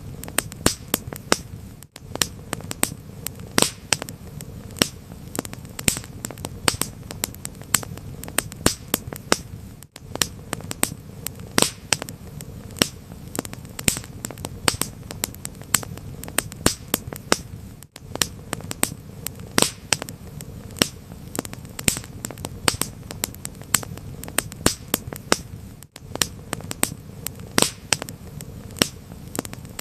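Wood fire crackling, with many sharp, irregular pops over a low steady rumble. A very brief dropout in the sound comes about every eight seconds.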